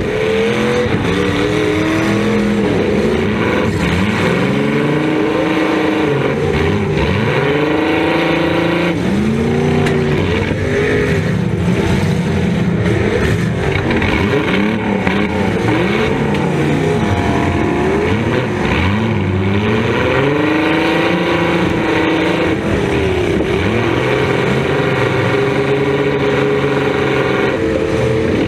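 Demolition derby car engines revving up and dropping back over and over, several engines at once, heard from inside a stripped derby car's cabin, with a few short knocks.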